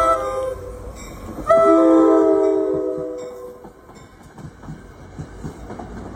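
Diesel locomotive's multi-note air horn sounding a chord: a short blast that ends just after the start, then a long, loud blast from about a second and a half in that fades out past three seconds, as the train sounds its warning for the grade crossing. After it, the train's low rumble and rattle on the rails.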